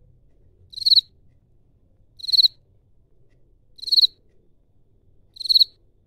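Field cricket chirping, made by rubbing one wing against the other: four short, high-pitched pulsed chirps, about a second and a half apart.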